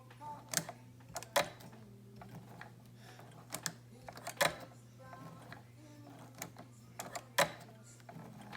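Singer 211G151 industrial needle-feed sewing machine turned slowly by hand, its needle and feed mechanism giving sharp, irregular clacks every second or so as it stitches through two layers of leather about 3/16 inch thick.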